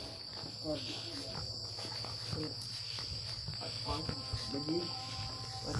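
Crickets trilling in one steady, unbroken high-pitched drone, with faint voices murmuring now and then.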